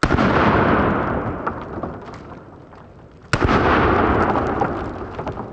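Two 5.56 rifle shots, a double tap, played slowed down. Each is a sudden boom that fades into a long rumble, the second coming a little over three seconds after the first.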